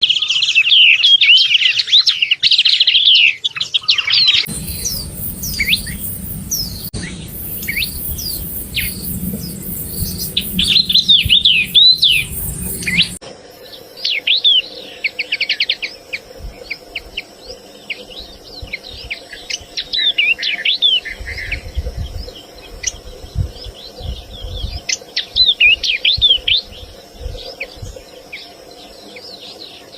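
Yellow-eyed babbler singing and calling: quick runs of short chirps and sliding, downslurred whistles, one after another.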